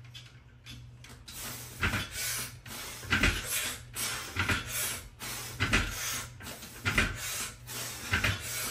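Pull-up reps: a noisy stroke about every 1.3 seconds, six in all starting about two seconds in, over a steady low hum.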